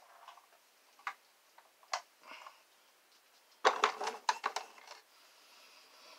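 Hard plastic toy Humvee being handled and set down: a couple of single clicks, then a quick clatter of plastic knocks about four seconds in.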